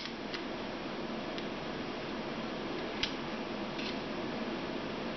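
A few light, sharp clicks and taps from handling a sensor and its wire lead in a small dish of water, over a steady background hiss. The clearest click is at the very start, another comes about three seconds in, and there are fainter ones between.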